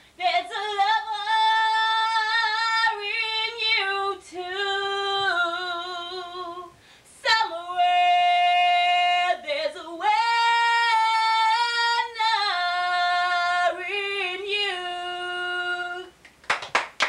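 A woman singing a cappella, holding long, high sustained notes with vibrato and short breaths between phrases. A few hand claps start right at the end.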